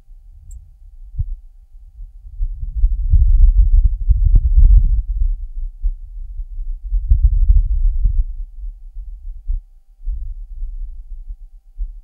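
Martian wind picked up by the Perseverance rover's microphone: a low, gusty rumble. It swells about two and a half seconds in, is loudest around four to five seconds, and gusts again around seven to eight seconds, with a few faint clicks at its peak.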